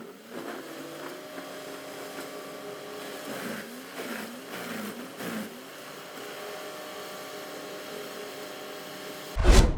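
Horizontal wood grinder's engine running steadily, its pitch dipping and recovering several times in the first half. A short, loud burst comes near the end.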